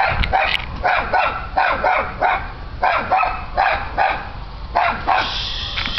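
A dog barking repeatedly, about two or three barks a second with a short break near the end.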